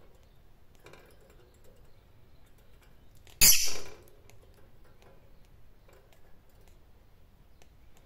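Rosy-faced lovebird giving one short, harsh squawk about three and a half seconds in. Otherwise only a few faint light clicks.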